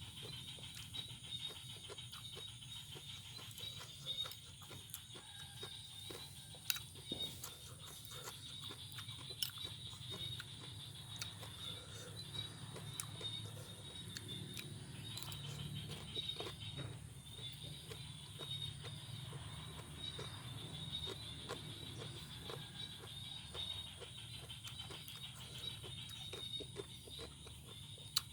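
Close-up chewing and crunching of a raw vegetable salad, with irregular crisp crunches and mouth clicks.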